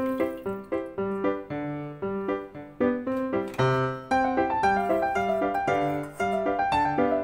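Background piano music playing a light melody of quick notes, with fuller accompaniment coming in about four seconds in.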